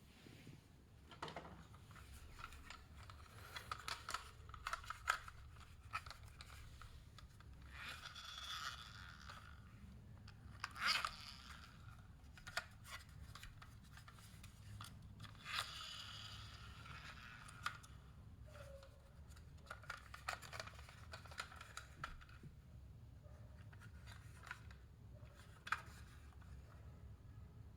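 Faint handling and unboxing noises: scattered clicks and scrapes, with a few stretches of packaging being torn or rustled.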